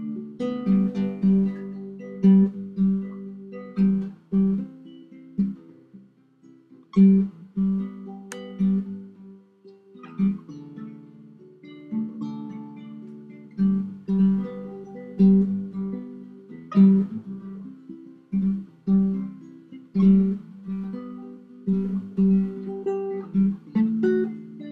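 Background music: an acoustic guitar playing a steady, unhurried picked and strummed accompaniment.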